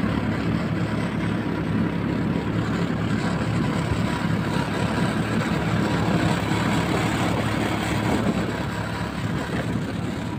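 Small engine of a tracked motor-towing sled (snow dog) running steadily under way, a constant low droning note with a rush of wind and track noise over it.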